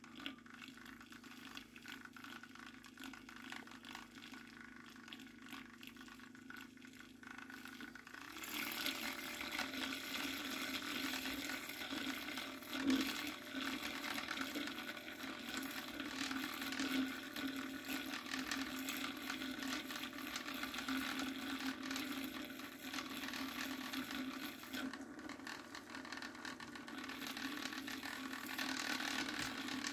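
Magnetic stir plate spinning a stir bar through a flask of hot agar and malt-extract mixture: a steady hum with the liquid swirling. It gets louder and rougher about eight seconds in.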